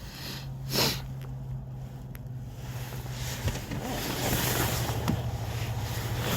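Wind buffeting the microphone with a steady low rumble, a short swish about a second in, and rustling handling noise that grows louder in the second half.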